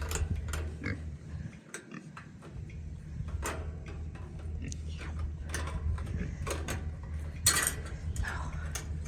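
Scattered knocks and metal clinks over a steady low hum, with a louder rattle about seven and a half seconds in.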